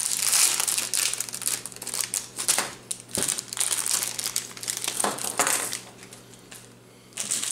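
Crinkling plastic packaging as a crankbait lure is handled and unwrapped, with irregular crackles that die down about six seconds in.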